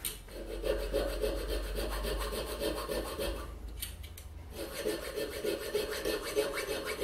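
Needle file rasping back and forth across a small metal pin held in a bench vise, in quick repeated strokes, with a short pause about halfway through.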